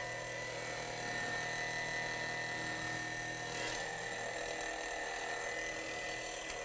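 Small electric suction pump running steadily with an even whir, drawing power steering fluid out of the reservoir.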